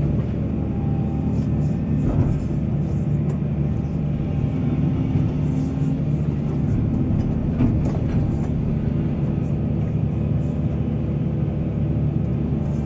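Heavy diesel mining excavator running steadily under load, with a knock about two seconds in and another past the middle.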